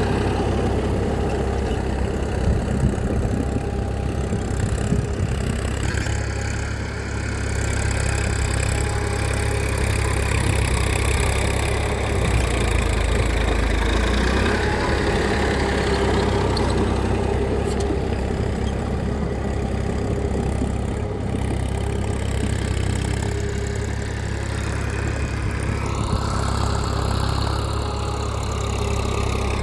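A small engine running steadily with a low hum, and a faint falling whine near the end.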